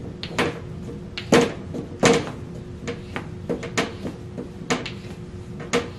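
Irregular clicks and knocks from handling a MIG welding gun as its nozzle is twisted onto the front by hand, with the loudest knocks about a second and a half and two seconds in.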